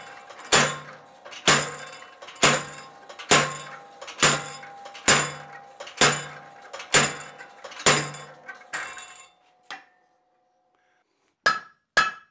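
Hand hammer striking a hot iron bar on a blacksmith's anvil: steady blows about one a second with a metallic ring after each. After a brief pause near the end, the blows turn lighter and quicker, about two a second, as forging moves to the edge of the anvil face.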